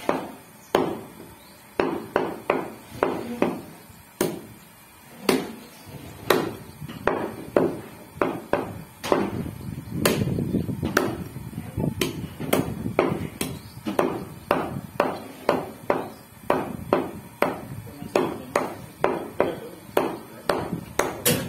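Meat cleaver chopping goat meat and bone on a wooden chopping block: a steady run of sharp chops, about two a second.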